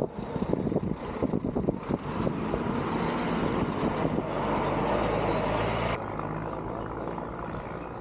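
An engine running steadily, with a clatter of knocks over the first two seconds; the sound drops abruptly to a quieter steady hum about six seconds in.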